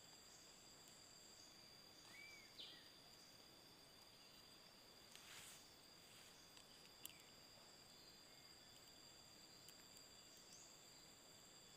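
Near silence with faint, steady high-pitched insect buzzing. A few faint chirps come about two seconds in, a brief swish about five seconds in and a single click about seven seconds in.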